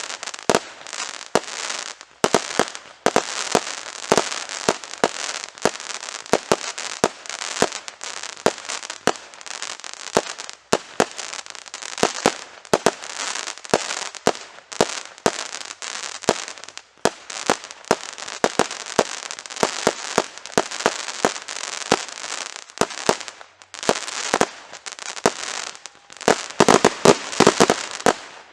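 Fireworks display: a rapid, continuous run of sharp bangs and crackling. The bangs thicken into a denser, louder flurry near the end.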